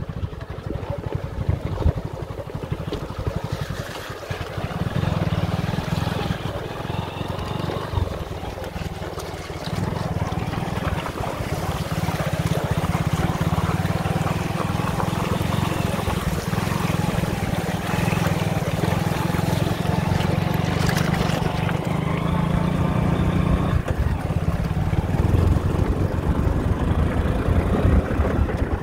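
Motorcycle engine running under way, a steady low rumble that dips briefly about four seconds and nine seconds in.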